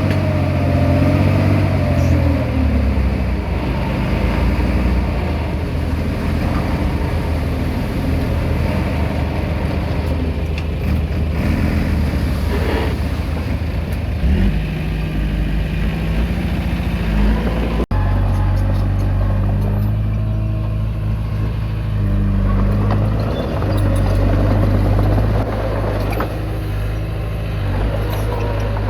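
Komatsu D20P bulldozer's diesel engine working steadily as it pushes soil, its pitch rising and falling with the load. The sound drops out for an instant about two-thirds of the way through, then the engine carries on.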